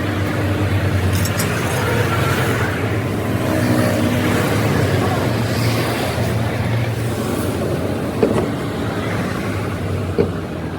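A vehicle engine running steadily with a low hum and traffic noise around it, with two short knocks near the end.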